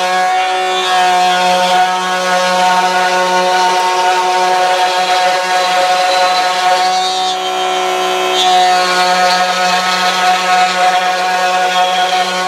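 Table-mounted router running at speed, its bit cutting a circle through a melamine board that is swung around a pivot pin: a steady, loud whine that wavers slightly in pitch as the bit takes the cut.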